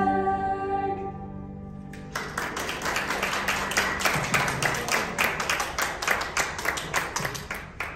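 The song's final held note fades out in the first second, then a small audience applauds with quick, separate hand claps from about two seconds in.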